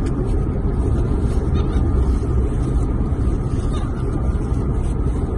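Steady low rumble of a car driving, heard inside the cabin.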